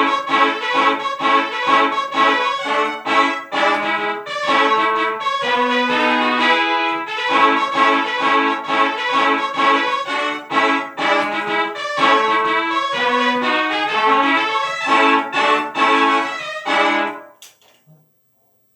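Upbeat instrumental music with a brass-like melody over quick, short, repeated notes. It fades out and stops near the end, leaving silence.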